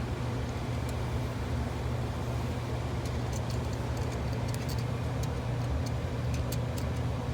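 Steady low background hum from running machinery or ventilation, with a few faint light clicks of small metal valve parts being handled.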